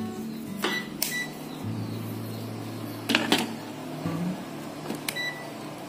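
Digital multimeter being switched on and set: clicks of its selector dial and buttons, with three short high beeps from the meter, two near the start and one near the end, over a low steady hum.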